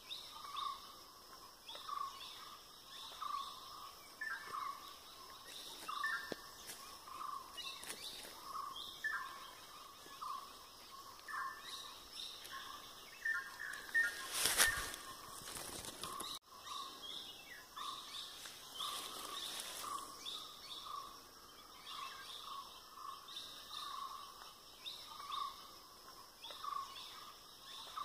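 Several birds calling: one repeats a short low note about once a second, while others add higher chirps. About halfway through, a brief loud rushing noise covers them for a second or two.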